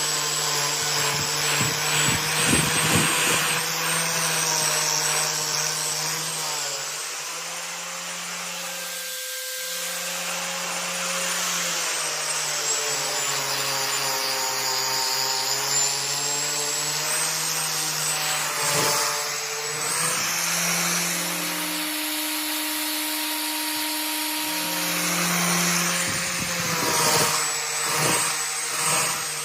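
An electric power tool runs steadily with a rubbing, grinding noise, its motor pitch shifting up and down every few seconds as the load changes. This is typical of steel being ground on a blade.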